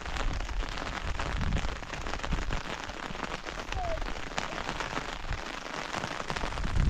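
Steady patter of rain on surfaces, with wind buffeting the microphone in irregular low thumps.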